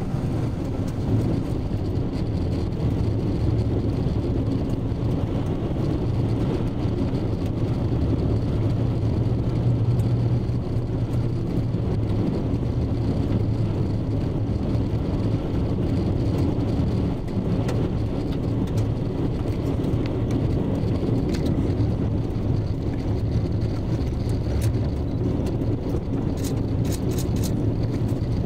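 Road noise heard inside a vehicle driving on a dirt road: a steady low rumble of tyres and engine, with a few quick clicks near the end.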